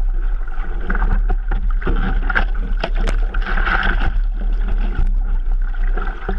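Water splashing and sloshing against a surfboard close to the camera as the surfer paddles with both arms, a dense run of small splashes that swells about halfway through.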